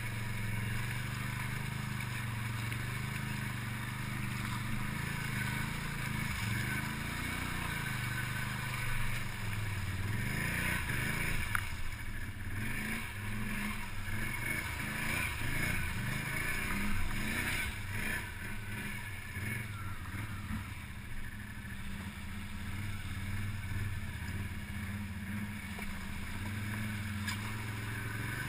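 ATV engine running under load through deep mud and water, its revs rising and falling, with mud and water splashing around the wheels, heaviest in the middle stretch.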